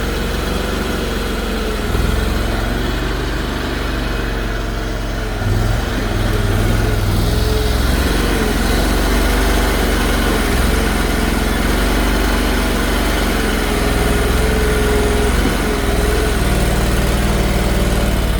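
Mini excavator running while digging a trench: a steady engine drone with a whine that shifts up and down in pitch.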